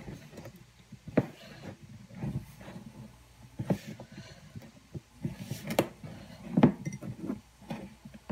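Hands mixing and kneading flour and water into roti dough in a plastic mixing bowl, with irregular knocks and thumps of the bowl against the countertop. The loudest thump comes about two-thirds of the way through.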